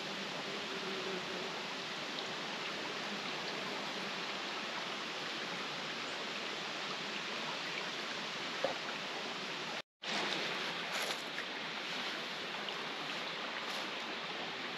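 Steady rush of flowing river water, even and unbroken. It cuts out for a split second about ten seconds in, then carries on the same.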